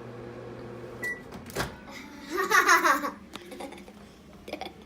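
Microwave oven humming, cut off about a second in by a short beep, then a sharp click. After that comes a brief excited high-pitched voice, which is the loudest sound.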